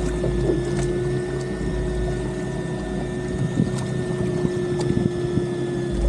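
Boat motor running steadily, a constant low rumble with a steady hum over it.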